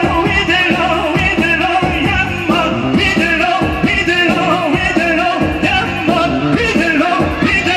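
Loud wedding dance music with singing over a steady, driving beat and a wavering melody.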